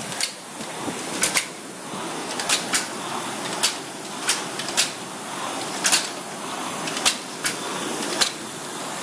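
Two air-resistance rowing machines being rowed hard: the fan flywheels whoosh steadily, with a sharp clack at roughly every second from the strokes.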